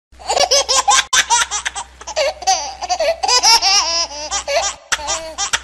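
High-pitched laughter in a long run of short, quick bursts over a low steady hum.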